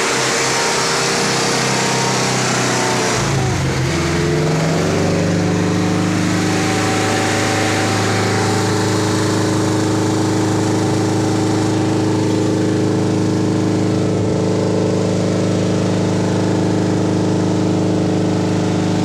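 Daihatsu Taruna's four-cylinder engine breathing through a 4-into-1 header and full aftermarket exhaust, held at high revs, then dropping back about three to four seconds in and idling steadily.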